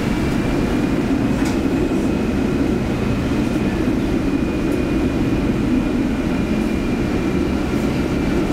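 PCC tram no. 2000 (1960) running on its rails: a steady low rumble with a faint high whine above it that bends gently in pitch.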